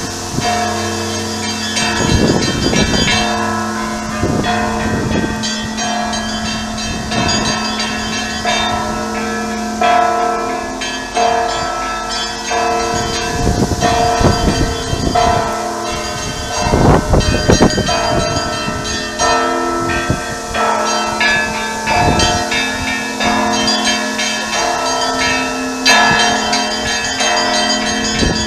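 Church bells pealing: several bells of different pitches struck again and again, their strikes overlapping and ringing on, over a steady low hum from a deep bell.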